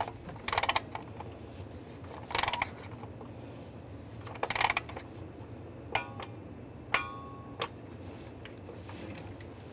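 Torque wrench's ratchet head clicking in three short bursts as intake plenum bolts are tightened, then two sharp metallic clicks with a brief ring, about six and seven seconds in.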